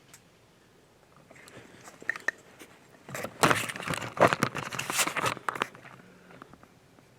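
A white-tailed buck, just hit by an arrow, crashing away through dry leaves and brush. A few light crackles come first, then a loud flurry of crunching and snapping for two or three seconds, which fades out.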